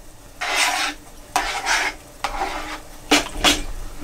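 Metal spoon stirring a thick mixture of cream of chicken soup, canned green beans and corn in a plastic bowl: four separate strokes of about half a second each.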